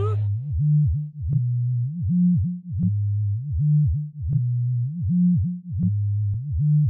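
Electronic music: a low synthesizer bass line on its own, pulsing in swelling notes about twice a second, with a sharp click where the notes change.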